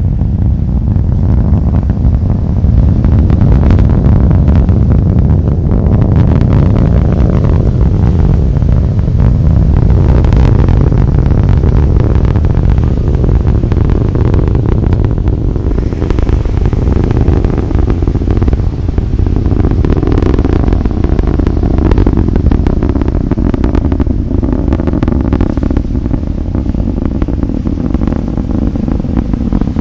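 Distant roar of an Atlas V 511 rocket climbing after lift-off, from its RD-180 first-stage engine and single solid rocket booster. It is a loud, steady, deep rumble laced with crackling.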